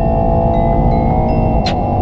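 Mercedes-AMG E63 S twin-turbo V8 pulling hard under full acceleration, heard from the cabin, with a sharp crack at the upshift from fifth to sixth about one and a half seconds in, after which the engine note drops. Short high chime-like tones ring repeatedly over it.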